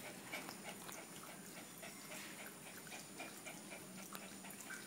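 Faint sounds from a small dog moving about and licking in a wire cage: a string of soft clicks, about three or four a second.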